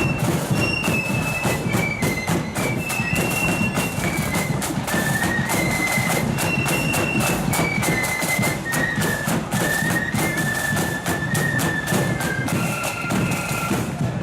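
Marching flute band playing a tune: the flutes carry the melody in held high notes that step up and down, over a steady, busy beat of snare and bass drums.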